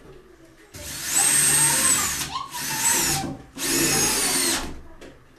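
Cordless drill running in three short bursts as it works into a timber beam, its motor whine climbing at the start of each burst.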